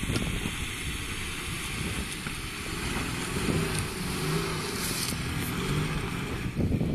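Nissan Patrol 4x4's engine pulling the truck up a rocky off-road track, its note rising and falling as it works over the rough ground.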